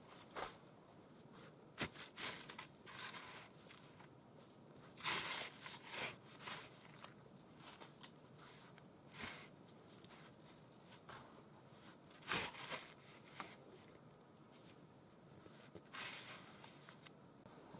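Snow shovel scraping and crunching into packed snow, in short strokes at uneven intervals a second or several apart.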